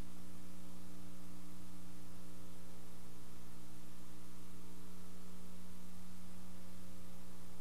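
Steady electrical hum with an even hiss and no other sound: the bare noise floor of an old recording that carries no game audio here.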